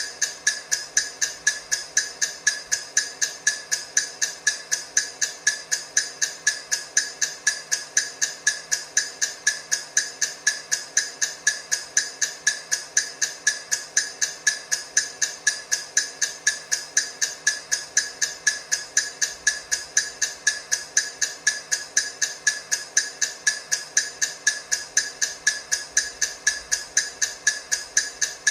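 Countdown timer's clock-like ticking: sharp, high ticks repeating at a quick, perfectly even rate, about two a second.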